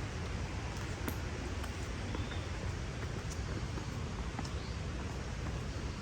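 Footsteps on a wet forest trail, a few scattered taps, over a steady rushing background noise with a low rumble.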